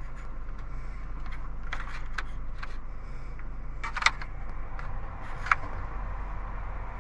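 Steady hum of the air-conditioning blower and idling engine inside a 2005 Ford F-150's cab, with a few scattered sharp clicks from the dash as the climate-control knobs are turned, the loudest about four seconds in.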